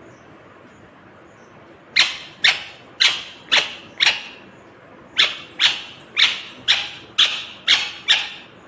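Ringneck parakeet screeching in a run of sharp, loud calls starting about two seconds in: five calls about two a second, a short pause, then seven more at the same pace.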